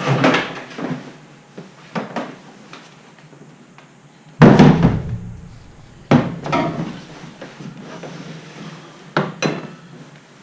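Fimco 40-gallon sprayer's plastic tank and metal parts being set in place and handled, giving several knocks and thuds, the loudest and deepest about four and a half seconds in.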